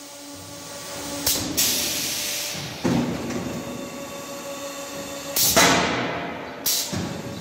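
Automatic silage bagging machine working through a bagging cycle: a steady motor hum with several sudden bursts of compressed-air hiss and clunks as its pneumatic actuators move, the loudest burst about five and a half seconds in.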